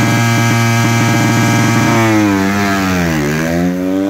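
Honda supermoto's single-cylinder engine held at steady high revs on the start line, then launching about halfway through: the revs dip as the clutch bites and climb again as the bike pulls away.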